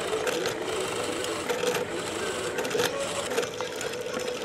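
Bench drill press running with a Forstner bit boring into a pine block: a steady motor hum with irregular crackling and scraping as the bit cuts the wood and throws out chips.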